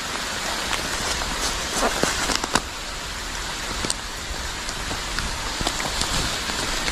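Steady rain falling, an even hiss with scattered sharp ticks of single drops.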